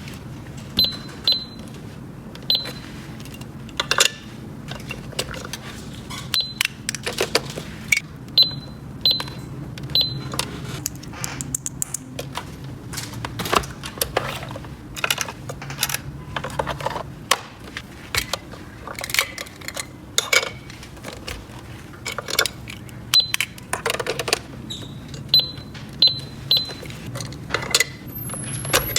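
Small plastic toy pieces clicking and knocking as they are handled, with short high electronic beeps every second or two.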